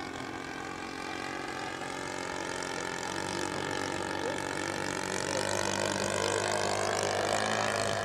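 Radio-controlled Seagull Models Bücker Jungmeister model biplane in flight, its engine and propeller running steadily; the pitch sags slightly, then rises and grows louder near the end.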